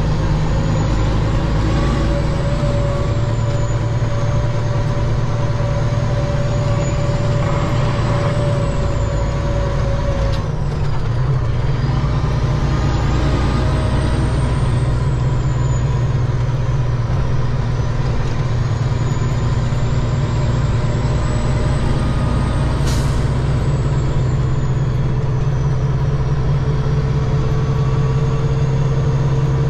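Peterbilt 379 semi truck's diesel engine running steadily, with a faint high whine that rises and falls. The engine note changes with a slight dip about ten seconds in, and there is a single sharp click near the two-thirds mark.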